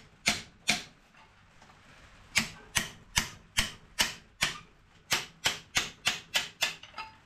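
A hammer tapping a screwdriver wedged behind the crankshaft timing-belt sprocket of a Ford Pinto engine, easing the sprocket off. The taps are sharp and come about two to three a second, with a pause of about a second and a half near the start.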